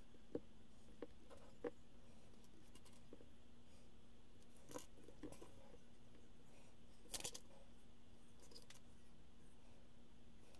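Plastic Lego pieces clicking and clattering as hands pick through a pile of loose bricks on a wooden table: scattered light clicks, with a louder short clatter about seven seconds in.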